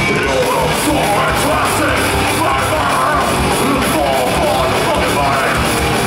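Live metal band playing: distorted guitars, bass and drums, with a singer's shouted vocals over them.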